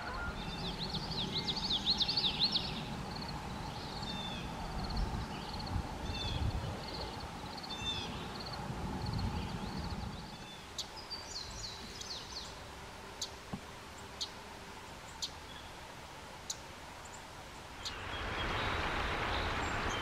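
Common yellowthroat song: a rapid run of warbled notes in the first couple of seconds, then shorter repeated phrases, over a low rumble of background noise. After about ten seconds come sharp, separate chip notes, and near the end a steady rushing noise sets in.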